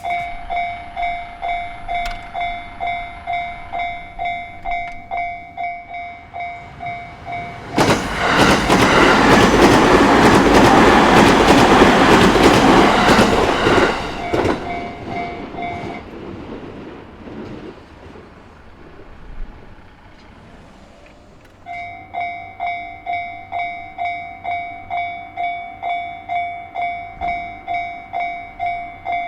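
Japanese level-crossing alarm ringing in steady electronic dings, a little under two a second. About eight seconds in, a JR Narita Line train passes over the crossing loudly for some six seconds, then its noise fades, and the alarm stops about sixteen seconds in. After a few quieter seconds the alarm starts ringing again.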